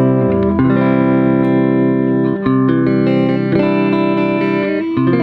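Telecaster electric guitar playing clean, ringing chords through an amplifier, changing chord about every second, with the tremolo pedal bypassed: the dry, unaffected guitar tone.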